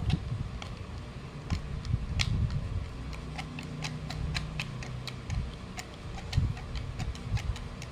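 Flat-blade screwdriver unscrewing the threaded valve-housing cap of a Phantom X PCP airgun receiver: a string of small, irregular metallic clicks and ticks over low handling noise.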